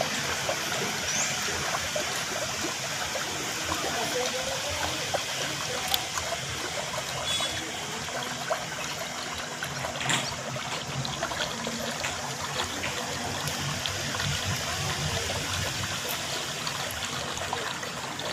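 Steady trickle of running water, an even hiss with fine crackle throughout and a couple of short ticks.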